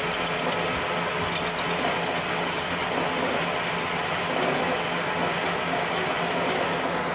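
Metal lathe running with its cutting tool working a cylindrical part: a steady machining noise without a break.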